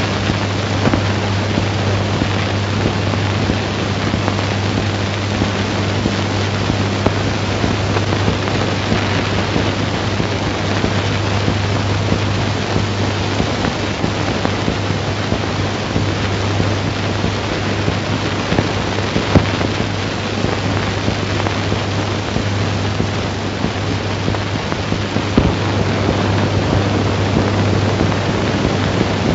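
Steady hiss and crackle of an old 1930s film soundtrack with no speech, over a constant low hum; a fainter second hum tone drops out about seven seconds in.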